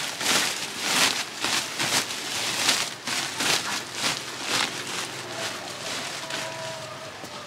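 Green woven plastic sack rustling and crinkling as it is handled and pushed down inside a plastic basket, in uneven crinkly swishes about one or two a second that grow softer toward the end.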